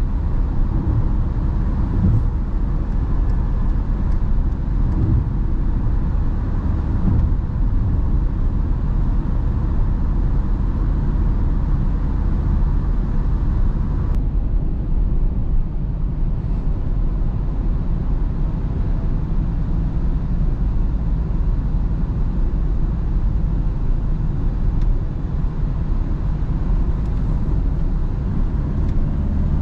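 Skoda Octavia's 1.9 TDI four-cylinder turbodiesel engine running along with tyre and road noise as the car drives through town, a steady low drone.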